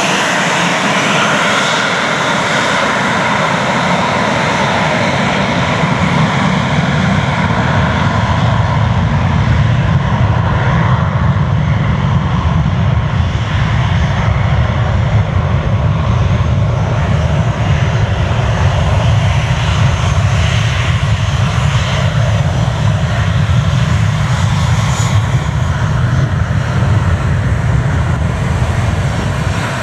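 Delta MD-88's two tail-mounted Pratt & Whitney JT8D turbofans at takeoff thrust during the takeoff roll: a loud, steady jet engine noise. It grows a little louder and deeper over the first ten seconds as the jet passes and its exhaust turns toward the listener.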